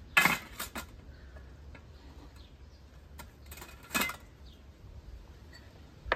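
Tableware being handled and set down: a plate placed on a metal tray and dishes moved on a low wooden table, giving a few sharp clinks and knocks. The loudest comes at the start, a cluster follows around three to four seconds in, and a single one near the end.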